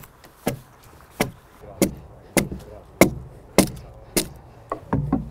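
A smith-forged broad axe (hewing axe) chopping into the face of a dry log, shaving off the sawn surface in short downward hewing strokes. About ten sharp chops come roughly every half second or so, with the last three closer together near the end.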